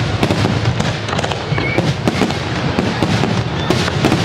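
Fireworks display: a dense, unbroken run of bangs and crackles, several shells going off every second.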